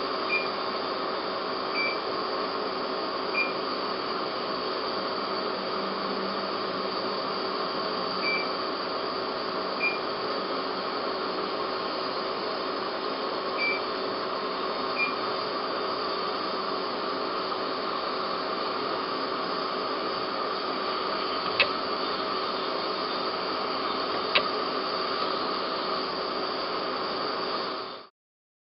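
Dental soft-tissue diode laser troughing the gum around a crown preparation: short high beeps in pairs about a second and a half apart through the first half, signalling that the laser is firing, over a steady hiss of operatory equipment. Two sharp clicks come near the end, and the sound cuts off suddenly just before it ends.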